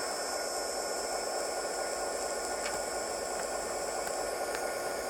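Recorded diesel locomotive prime mover sound idling steadily, played through a small cell-phone speaker, so it comes out as an even, hissy drone.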